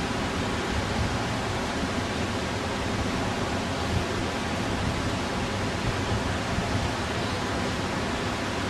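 Steady, even hiss that holds at one level throughout, with no words spoken.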